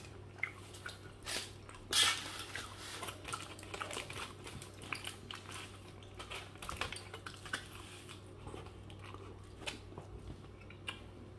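Mouth-close eating of a burger held in aluminium foil: biting and chewing with many small crackles of the foil wrapper, and a louder crackle about two seconds in.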